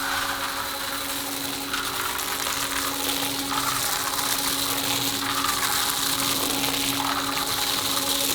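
Factory machine running steadily: a constant hum with a hiss, and a swishing swell that comes back about every second and a half to two seconds.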